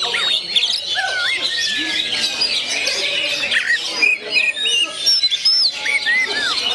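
Oriental magpie-robin (kacer) in full song: a rapid, varied run of clear whistles and notes sliding up and down in pitch, with several phrases overlapping.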